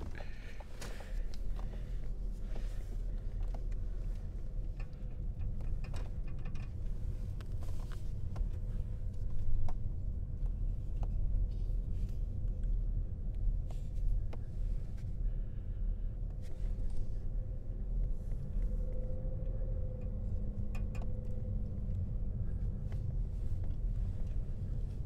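Car driving slowly on a paved road, heard from inside the cabin: a steady low rumble of tyres and engine, with scattered light clicks.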